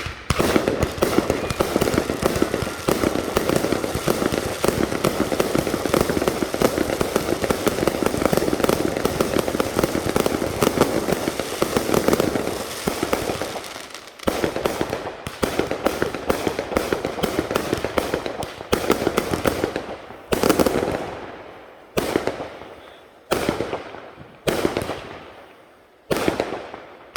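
Fireworks going off. A dense, rapid barrage of crackling bangs lasts about fourteen seconds, then gives way to single sharp reports about one to one and a half seconds apart, each dying away before the next.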